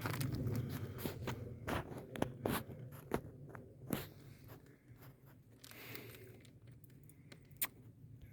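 Footsteps crunching on the ground while walking, an irregular series of sharp crunches and clicks that grows sparser after about five seconds.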